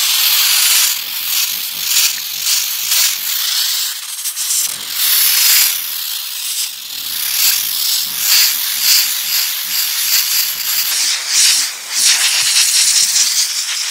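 Compressed-air blow gun hissing as it is swept across a pleated tractor cabin air filter, blasting the caked dust out of it. The hiss is nearly continuous, rising and dipping as the nozzle moves over the pleats, and stops sharply at the end.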